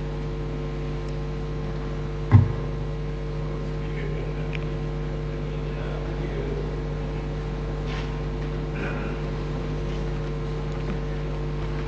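Steady electrical hum from the chamber's microphone and sound system, with faint room noise and a single thump about two and a half seconds in.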